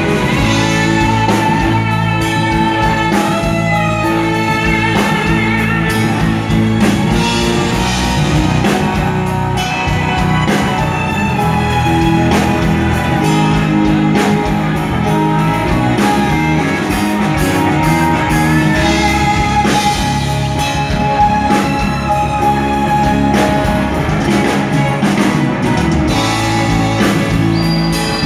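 Live band playing steadily during a sound check: electric guitar, bass guitar and keyboard with a full band sound.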